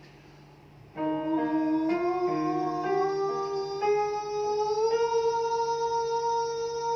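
A singer holds one long sustained vocal note starting about a second in, sliding gradually upward in pitch and then held steady, as a breath-length exercise sung with the neck kept still. A faint low steady tone sits underneath.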